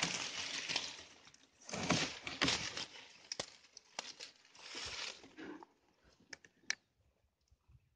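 Tall grass and reeds rustling and scraping against a small wooden boat and a fishing rod in several bursts, followed by a few sharp clicks near the end.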